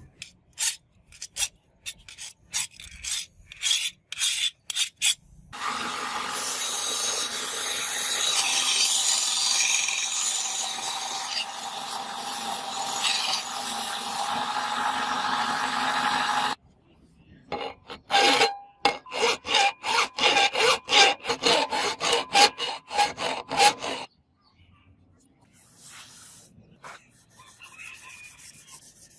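Abrasive shaping of a forged steel blade: quick rasping back-and-forth strokes at about two a second, then about ten seconds of unbroken rasping, then another run of strokes that stops a few seconds before the end.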